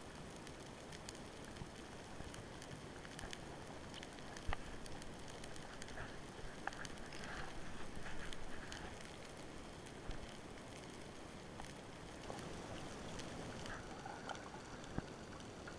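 Underwater ambience through a camera housing: a steady low hiss scattered with sharp clicks and crackles, one louder click about four and a half seconds in, and a few brief swishing rushes in the middle and near the end.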